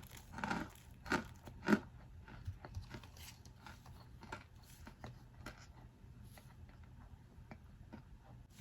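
Packed cornstarch crunching: a few crisp crunches in the first two seconds, the last the loudest, then fainter scattered crackles and ticks.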